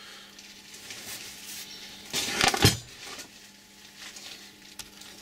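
Workshop handling sounds: faint rustling, then a short cluster of knocks about halfway through as a heavy cast-iron counterweight is set down on the wooden workbench, with a couple of small clicks near the end.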